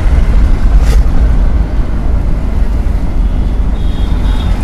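Steady low rumble of a manual car's engine and tyres heard from inside the cabin while driving, with a sharp click about a second in.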